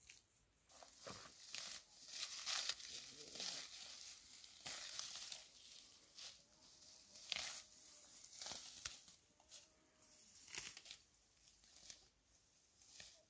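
Leafy greens being pulled up and snapped off by hand: a run of irregular rustling, tearing crackles.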